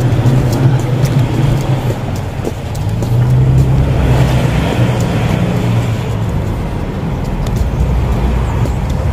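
Road traffic: cars driving past with a steady low engine rumble and tyre noise, swelling about three to five seconds in.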